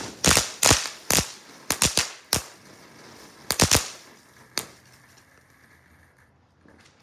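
Ground firework going off with an irregular string of sharp cracks that comes thick at first and thins out, the last crack about four and a half seconds in, then only a faint hiss as it burns out.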